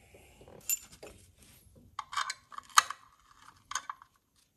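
Metal hand-tool clicks and scraping on the timing belt tensioner's threaded rod as it is worked loose under tension: a few sharp clicks, the loudest about three seconds in, with a rasping scrape between about two and four seconds.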